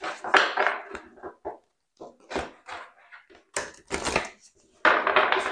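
A deck of tarot cards being shuffled by hand: cards sliding and slapping against each other in short, irregular bursts, the busiest one near the end as the split deck is worked together.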